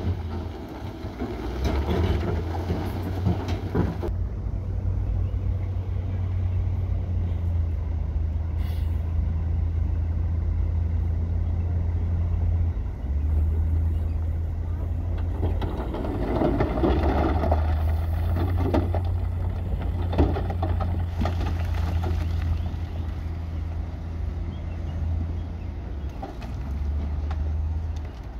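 Heavy construction machine's diesel engine running with a steady low drone, with bursts of louder mechanical noise in the first few seconds and again around the middle.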